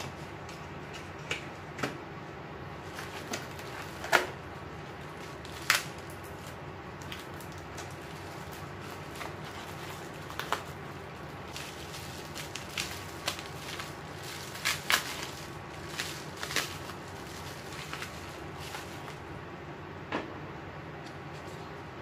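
An electric fan running with a steady hum, under irregular crinkling of bubble wrap and light clicks and taps of small cardboard boxes being handled. A few sharper crinkles stand out in the first six seconds, and a busier run comes in the middle.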